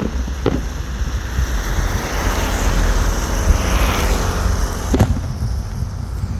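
Fireworks going off, with sharp bangs at the start, about half a second in and about five seconds in, and a hissing swell in the middle, heard over a heavy rumble of wind on the microphone.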